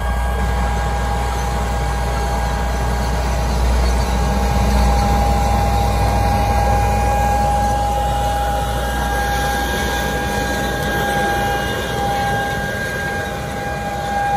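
Fendt 1050 tractor's 12.4-litre six-cylinder turbodiesel running under load as it pulls an air seeder, a deep rumble with a constant high whine over it. The rumble fades over the last few seconds as the tractor draws away.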